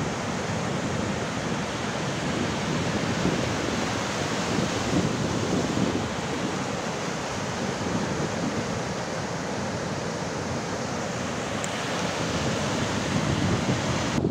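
Rough sea surf breaking and washing up a sandy beach, a steady rushing wash, with wind blowing across the microphone.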